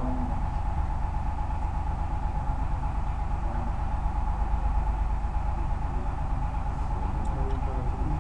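Steady low machine hum with a thin steady whine above it, unchanging throughout.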